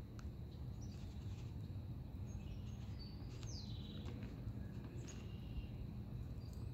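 Pond-side outdoor ambience: a few faint, scattered bird chirps, one gliding downward about halfway through, over a low, steady background rumble.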